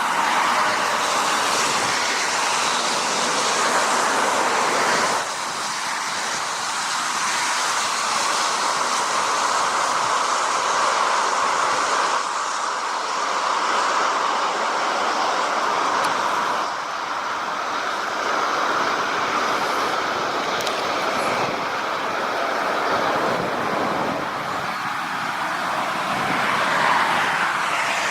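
Floodwater of a swollen river rushing, a steady loud roar of water that dips and rises in level a few times.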